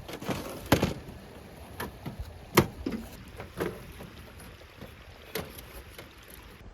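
A handful of sharp knocks and clicks, a few seconds apart and the loudest near the middle, over a low rumble of wind on the microphone.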